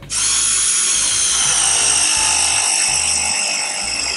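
Milwaukee M12 ProPress tool running through a press cycle on a copper pipe fitting: its motor starts abruptly and runs with a loud, steady whine whose pitch slowly drops.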